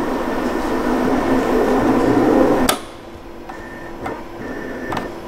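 Cutting plotter running as it scans the registration marks on a printed vinyl sheet: a steady motor whir that stops suddenly with a click a little over two and a half seconds in. After that come short, quieter motor whirs and a few light clicks as the head and sheet reposition.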